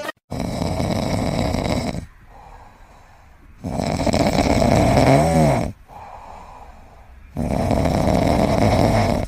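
A pet snoring: three long snores about three and a half seconds apart, with quieter breaths between them. The middle snore carries a wavering whistle.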